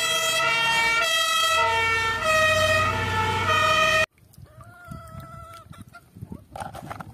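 German fire engine's two-tone siren, alternating between two pitches, which cuts off abruptly about four seconds in and leaves only faint rustling and light knocks.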